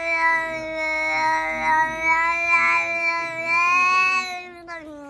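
A domestic cat's long, drawn-out yowl held on one steady pitch, sliding down in pitch and fading near the end.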